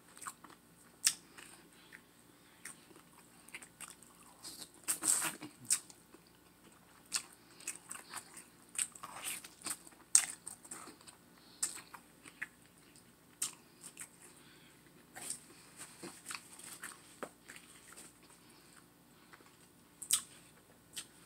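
Close-up eating sounds: biting and chewing meat off a baked turkey leg, with sharp mouth clicks at irregular intervals and a busier spell of chewing about five seconds in.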